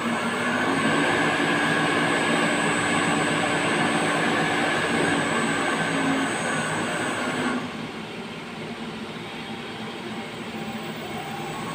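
Electric machinery running with a steady whine and hum, which cuts out about seven and a half seconds in, leaving a quieter running noise.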